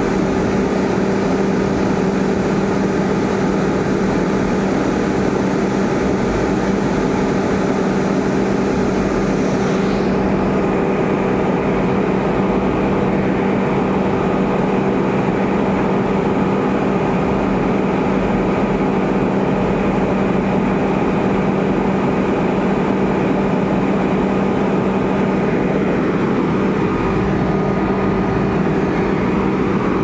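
Sany concrete pump's diesel engine and hydraulic drive running steadily under test, a constant loud machine hum with a steady low drone. A high hiss over it drops away about ten seconds in.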